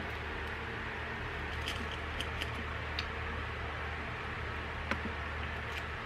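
Quiet room tone: a low steady hum with a few faint, short clicks and taps scattered through it, the clearest nearly five seconds in.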